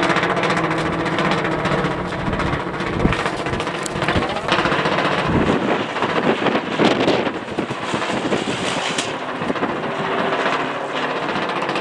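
Kite fabric flapping and rattling rapidly in strong, gusty wind, over a steady low hum. The gusts grow noisier about halfway through.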